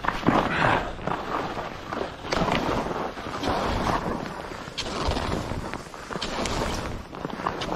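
Skis hissing and scraping over chopped-up, tracked snow in uneven surges with each turn, mixed with wind buffeting the camera microphone. A few short sharp ticks come through in the second half.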